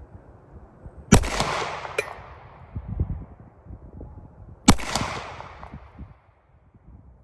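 Two unsuppressed shots from a Glock 43 9mm pistol with an aftermarket extended threaded barrel, firing supersonic ammo, about three and a half seconds apart, each with a trailing echo. The slide cycles after the first shot, but after the second the pistol fails to chamber the third round and jams.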